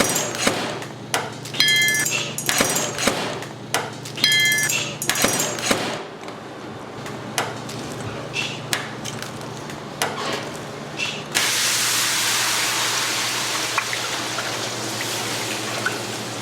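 Eggs cracked one after another against a metal rim: quick sharp knocks, some with a brief metallic ring. About eleven seconds in, a steady rushing noise like running water takes over.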